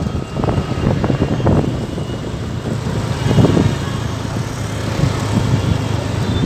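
Street traffic: motorcycle and auto-rickshaw engines running close by, a steady low engine hum that swells louder a few times.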